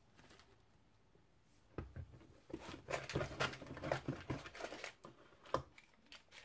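Hands rummaging through a model-ship kit box, with rustling and clattering of wooden sheets, metal fret and cardboard. Near the end there is one sharp click as a clear plastic parts box is picked up.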